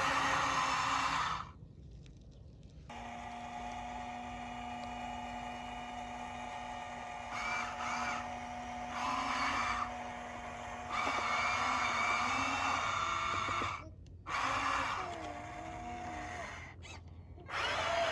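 Small electric motors and gearboxes of radio-controlled construction models whirring and whining, in several short clips separated by abrupt cuts, with the pitch gliding up and down near the end.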